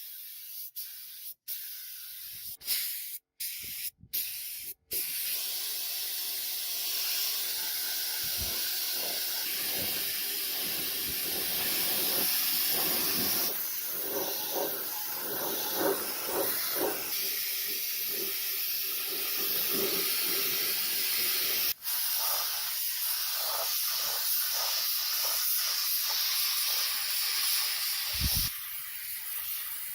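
A steady hiss, broken by several short gaps in the first five seconds.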